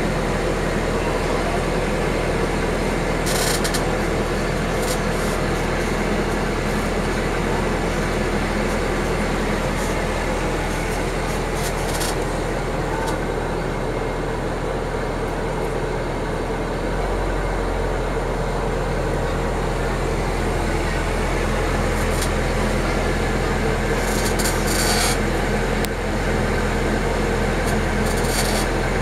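Engine of a 1981-built GDR-era motor ferry running steadily under way, with a continuous drone and the rush of water and wind. The drone gets a little stronger about halfway through.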